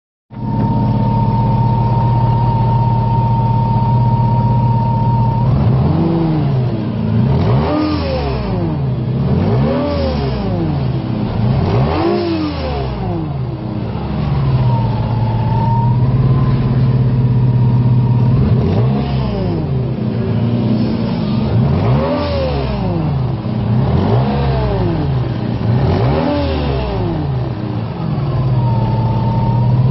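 Lexus IS200 straight-six engine idling with a steady high-pitched compressor whine. It is then blipped repeatedly, about every two seconds, each rev rising and falling. The whine comes back whenever it settles to idle.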